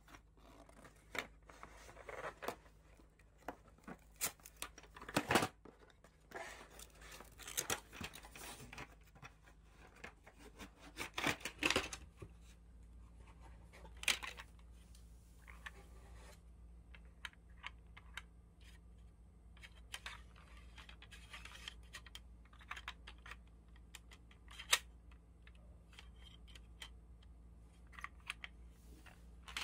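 Light handling sounds: scattered faint clicks, taps and rustles, with louder clusters about five, eight and eleven seconds in and a single sharp click near the twenty-fifth second.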